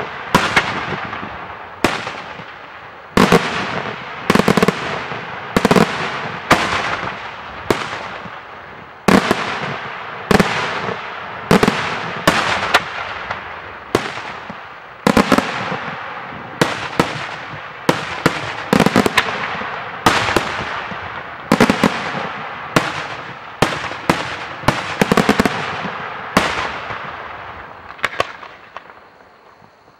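Daytime aerial fireworks shells bursting in a rapid series of loud bangs, roughly one a second, each trailing off in a short echo. The bangs stop a few seconds before the end and the echo fades out.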